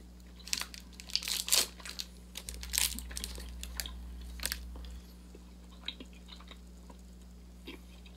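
A Hi-Chew candy's individual wrapper crinkling and tearing as it is unwrapped by hand: a flurry of crackling rustles over the first three seconds or so, then only a few faint crinkles as the unwrapped chew is handled.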